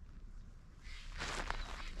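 Footsteps on a hiking trail: a brief scuffing crunch about a second in, with lighter steps after it.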